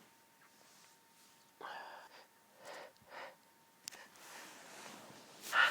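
A person breathing between allergy sneezes: a few faint short breaths, then a longer breathy inhale that rises in the last two seconds, catching sharply near the end as the next sneeze builds up.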